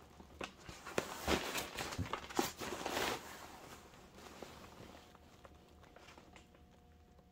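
A paper product leaflet rustling and crinkling as it is handled and unfolded, in a run of short rustles over the first three seconds, then only faint handling.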